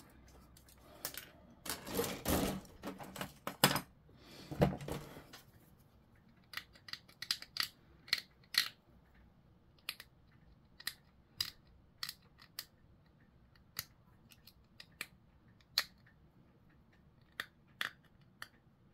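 Flush cutters snipping parts off a plastic model-kit sprue: a few seconds of rustling plastic and loud snaps at the start, then scattered sharp clicks as the cutters trim off the remaining nubs of plastic.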